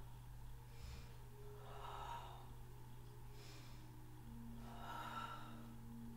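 Faint, even breathing of a person doing a floor abdominal exercise, with about four soft breaths in the space, over a steady low hum.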